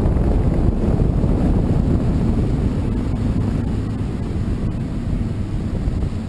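Outboard motor running while a small boat is under way, mixed with wind rumbling on the microphone; the sound gets a little quieter near the end.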